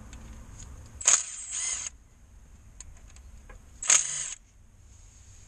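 Cordless power wrench undoing the bolts of a crankshaft rear oil-seal housing in two short bursts. Each burst opens with a sharp crack followed by a brief motor whine, the first about a second in and the second near four seconds.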